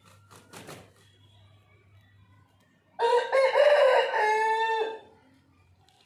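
Aseel rooster flapping its wings a few quick times, then crowing once: a single crow of about two seconds starting about three seconds in, holding a steady pitch and cutting off sharply.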